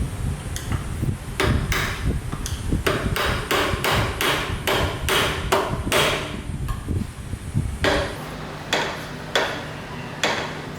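Repeated hammer blows, about two to three a second, pausing about seven seconds in and then a few slower, spaced blows.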